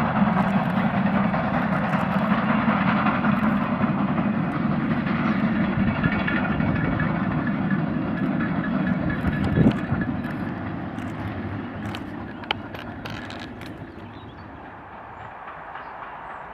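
A steam locomotive hauling a freight train, running steadily with the dense noise of its exhaust and rolling wagons. A single sharp knock comes about ten seconds in, after which the sound fades away over a few seconds.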